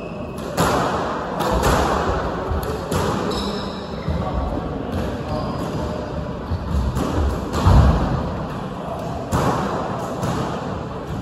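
A squash rally: the ball is struck by rackets and smacks off the court walls, sharp hits every second or two with a short echo after each. The hits stop near the end as the rally finishes.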